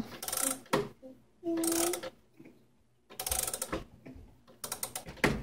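Mechanical clock being wound with a key: the winding ratchet clicking in four short bursts, one per turn of the key, with pauses between.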